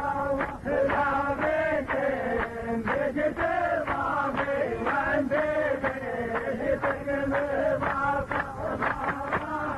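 A man's voice chanting Arabic verse in a drawn-out melodic style, his pitch gliding and bending without a break.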